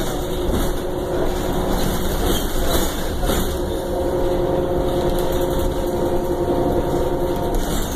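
2009 Orion VII transit bus heard from inside the cabin: a steady low engine and drivetrain rumble with a whine held over it. A second, higher whine joins about halfway through, and both fade away near the end.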